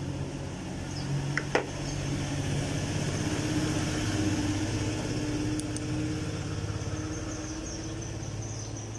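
A steady motor hum that swells toward the middle and eases off, with two short snips of scissors trimming the lure about one and a half seconds in.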